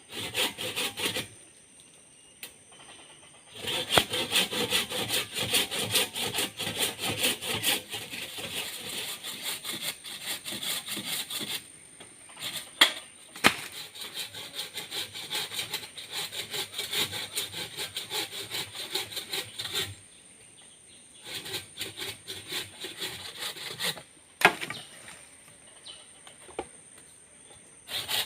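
A hand saw cutting through wood with rapid back-and-forth strokes, in several bouts broken by short pauses.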